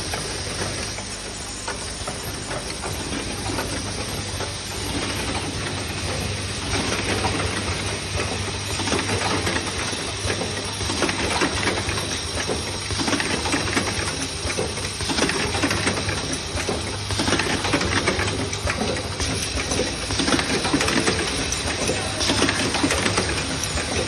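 Automatic hydraulic hinge assembly machine running: a steady hum under rapid mechanical clatter and short hisses of air from its pneumatic cylinders, in bursts about every two seconds that get busier after the first few seconds.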